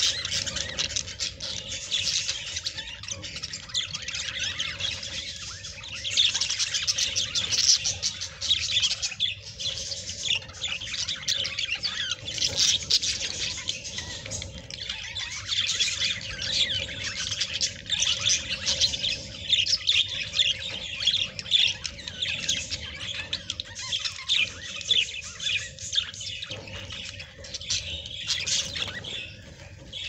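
A flock of budgerigars chattering and chirping all at once in a busy, unbroken din of warbling calls.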